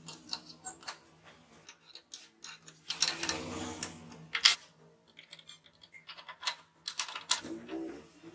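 Small metal parts clicking and clinking as a steel crank arm is fitted onto a motor shaft and its screw is turned with an Allen key, with a short scrape of metal on metal about three seconds in.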